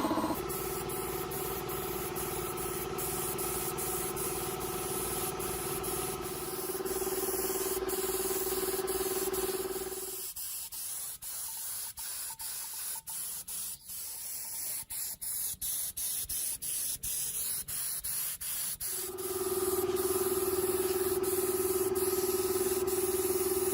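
Electric paint spray gun running: a steady motor hum under the hiss of the spray. Partway through the hum stops for several seconds, leaving a fainter hiss broken by a quick run of sharp clicks, then starts again.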